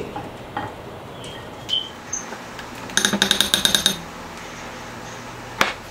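Silicone spatula working through sauced short ribs in a ceramic baking dish: soft scrapes and small knocks, a quick ringing rattle of about ten rapid taps about three seconds in, and one sharp click near the end.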